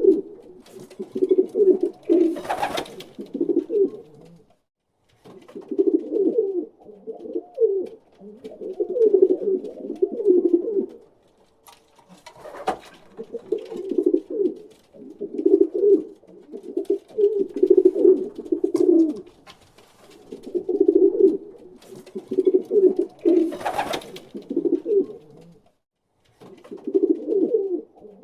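Pigeons cooing: low warbling coos in phrases of a couple of seconds, repeating with short pauses. Three brief sharp knocks are heard among them.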